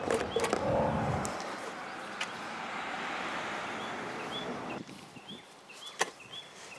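SAE 30 motor oil pouring from a plastic bottle through a plastic funnel into a lawn mower engine's oil fill tube: a steady pouring hiss that begins after about a second of handling and stops suddenly about five seconds in.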